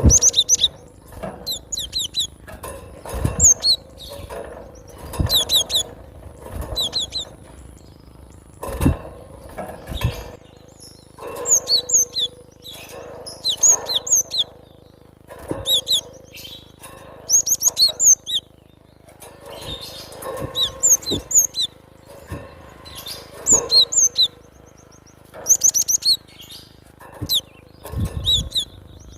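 Cinereous tit (gelatik batu) singing in repeated short bursts of high, quick chirps, a new phrase about every two seconds. Dull low thumps come under some of the phrases.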